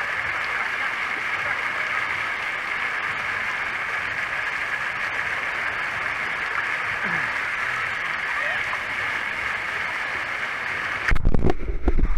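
Busy wave pool: a steady wash of many distant voices mixed with splashing water. Near the end, a loud rumbling bump of something close to the microphone.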